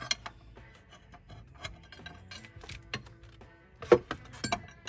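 Scattered metallic clicks and knocks of hand tools on the engine cooling fan's bolts, with the loudest knock about four seconds in, over soft background music.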